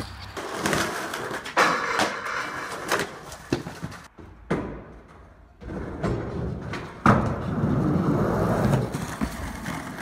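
Skateboard sounds: polyurethane wheels rolling over pavement and concrete with scattered clacks of the board and trucks. About seven seconds in, a loud smack of the board landing, then a couple of seconds of wheels rolling across a smooth concrete floor.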